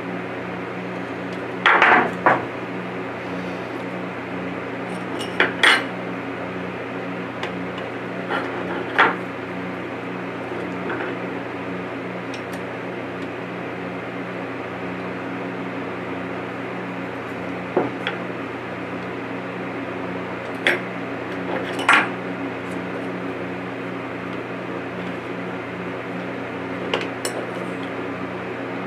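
A steady electrical hum runs throughout, with irregular hard clatters and knocks over it, the loudest about two seconds in.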